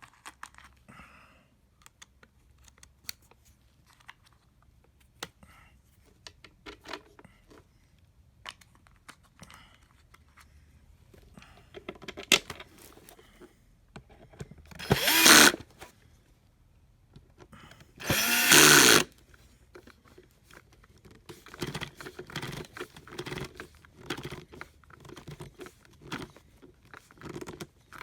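Cordless drill driving screws into the vacuum's plastic housing in two short runs of about a second each, among scattered clicks of parts being handled.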